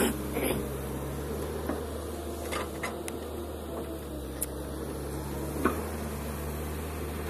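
Kobelco SK210LC hydraulic crawler excavator's diesel engine running steadily under load while it digs and dumps soil, with a few short sharp knocks from the working bucket and arm.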